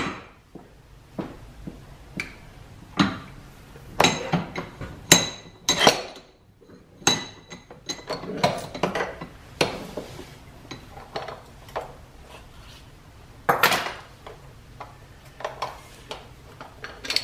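Metal clinks and knocks from working a bench vise and handling a steel belt-lacing tool: the vise handle being turned and the tool's parts clanking against the vise. The clanks are scattered and irregular, with a louder clatter about three-quarters of the way through.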